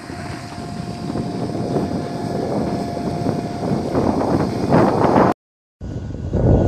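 Engines of heavy road-building machinery running, with a steady whine for the first four seconds and wind on the microphone; the rumble grows louder, cuts out for about half a second just after five seconds, and comes back loud.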